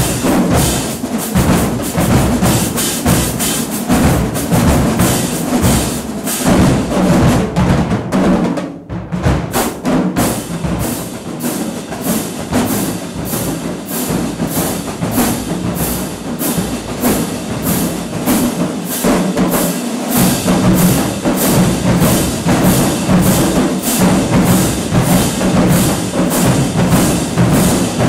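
Marching band drumline playing a cadence on snare, tenor and bass drums with cymbals: a fast, driving rhythm of drum strokes, with a short break about nine seconds in before it picks up again.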